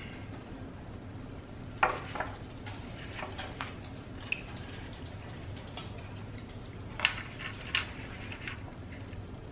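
Scattered clicks, clinks and light knocks of a wooden pallet sign and small metal brackets and screws being handled on a stone countertop, the sharpest about two seconds in and again about seven seconds in, over a low steady hum.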